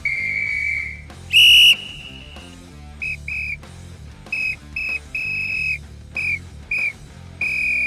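Referee's whistle blown in a series of blasts: a long steady one, a single very loud shrill blast, then pairs of short sharp toots with longer blasts between them, ending on a long blast.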